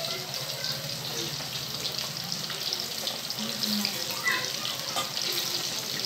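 Fish pieces deep-frying in hot oil in a wok: a steady bubbling hiss with fine crackling.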